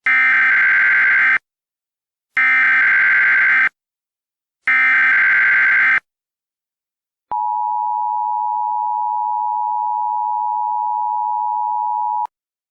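Emergency Alert System SAME header: three bursts of warbling digital data tones, each about a second and a half long and a second apart. These are followed by the steady two-tone EAS attention signal, which is held for about five seconds and then cuts off sharply. Together they mark the start of an emergency alert broadcast.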